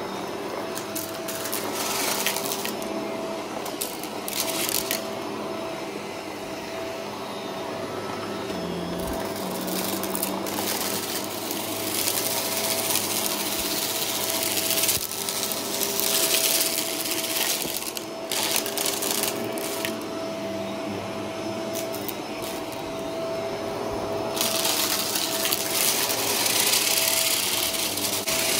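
Upright vacuum cleaner running over carpet and a rug, its motor holding a steady whine, with bouts of crackling and rattling as crunchy debris is sucked up.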